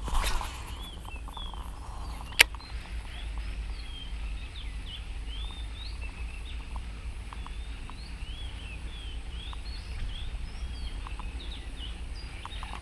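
Birds chirping throughout with many short calls that glide up and down. A fishing rod swishes in a cast at the very start, and one sharp click sounds about two and a half seconds in.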